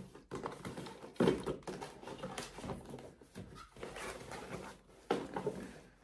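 Rustling and soft knocks of things being packed into a suitcase and the suitcase lid being handled, with a louder knock about a second in and another near the end.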